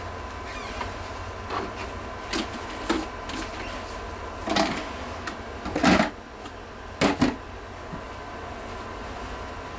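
Irregular knocks and clacks from computer hardware being handled, about nine in all, the loudest about six and seven seconds in, over a steady low hum.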